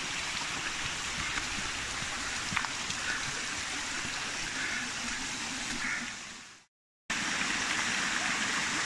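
A small stream running with a steady rush of water. The sound fades out and drops to silence for about half a second near the end, then comes back abruptly at the same level.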